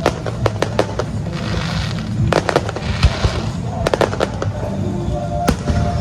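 Aerial fireworks going off: a string of sharp bangs and cracks, some in quick clusters, with crackling hiss between them over a constant low rumble. Music plays underneath.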